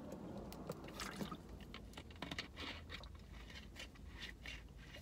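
Thin plastic water bottle crinkling and crackling in the hand while it is drunk from and handled: a scatter of small, irregular clicks.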